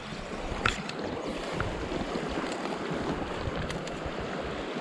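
Small creek flowing, a steady rushing hiss of running water, with a few brief clicks.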